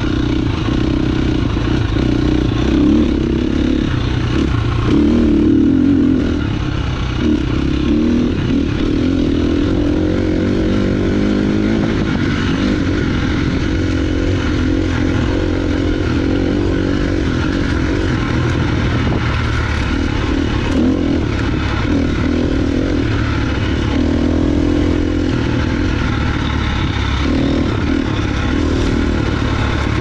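KTM 350 XCF dirt bike's single-cylinder four-stroke engine running under load, its revs rising and falling as it is ridden, with a few short knocks along the way.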